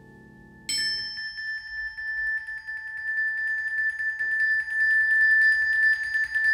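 High, ringing mallet-percussion note played as a rapid tremolo on one pitch. It enters suddenly just under a second in and swells steadily louder. A faint, held low chord sounds underneath it at the start.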